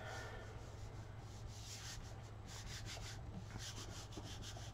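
Parchment paper being rubbed down onto a Gelli gel printing plate to lift a ghost print: faint, irregular brushing strokes, about one or two a second.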